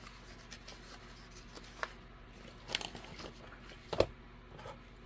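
Pages of a spiral-bound pattern book being leafed through with faint rustles and clicks, then the book laid open flat on a cutting mat with a sharp knock about four seconds in.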